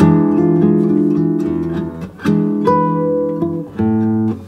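Guitar music: plucked chords ringing, with the chord changing about every second.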